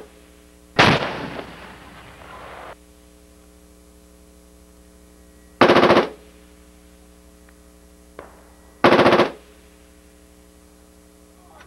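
Three short bursts of tank machine-gun fire, each about half a second long, a few seconds apart. The first rolls on in a long echo for about two seconds. A steady low hum runs underneath.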